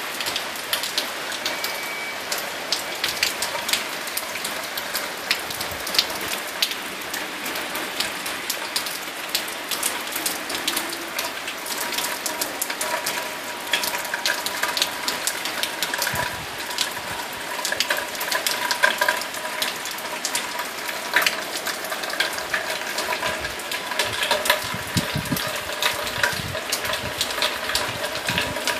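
Steady rain falling, with a dense patter of many sharp drop impacts over a constant rush of water. Faint steady tones join about twelve seconds in.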